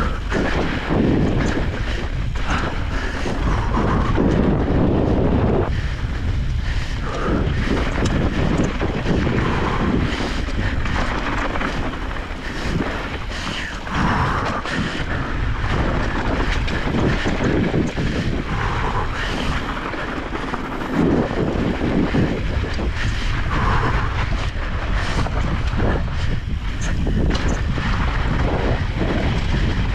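Wind buffeting the microphone of an e-bike rider's camera, a continuous rumble with frequent knocks and rattles from the bike jolting over a rough dirt trail.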